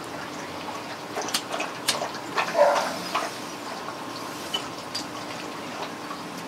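Someone smoking from an apple used as a pipe: a few sharp clicks, then short sucking and puffing noises, the loudest about two and a half seconds in, over a steady hiss.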